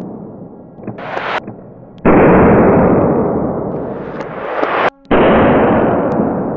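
Slowed-down bangs of a powder-charged confetti revolver firing: two sudden bangs about three seconds apart, each fading away slowly, after the dying tail of an earlier one, with a short, sharper crackle about a second in.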